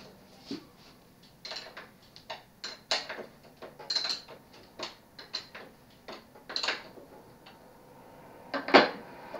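Scattered sharp metal clicks and clinks as a bicycle saddle and its clamp are fitted onto the seat post, with a louder clank near the end.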